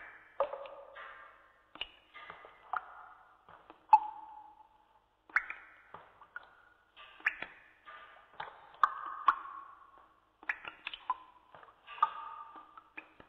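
Water dripping in irregular plinks, roughly one a second, each with a short ringing, echoing tail at a different pitch.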